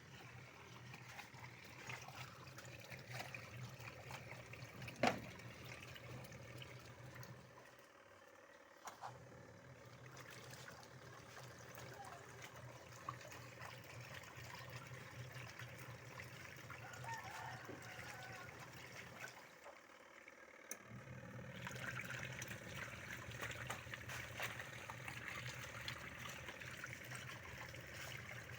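Water trickling into a washing machine, with a low steady hum that cuts out briefly twice and a sharp click about five seconds in. The trickling grows louder after about twenty-one seconds.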